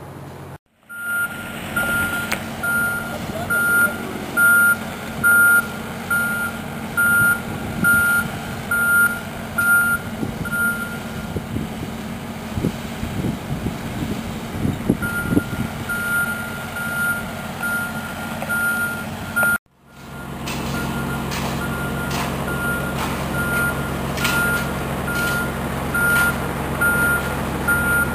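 A truck reverses with its backup alarm beeping at one steady pitch, a bit over one beep a second, over the engine running. The beeping pauses for a few seconds around the middle, then starts again.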